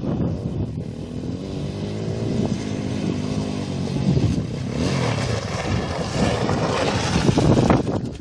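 Small motorcycle engine under hard throttle, climbing a steep dirt hill. Its pitch drops and rises with the throttle, and it grows louder as it comes close near the end.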